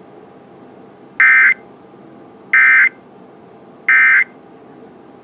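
Emergency Alert System end-of-message (EOM) signal: three short bursts of SAME digital data tones, about a second apart, marking the end of the alert broadcast. Between the bursts a steady faint hiss runs underneath.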